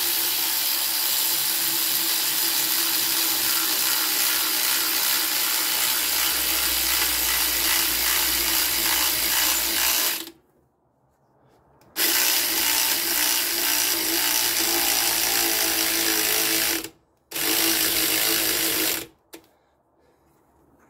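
Cordless electric ratchet motor running a bolt down on the alternator mount, with a steady whir. It runs in three stretches: a long one of about ten seconds, then about five seconds, then a short two-second burst, and stops near the end.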